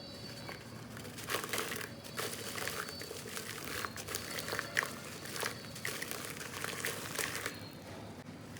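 Lumps of soft black sand crumbled by hand, crunching and crackling irregularly as they break apart.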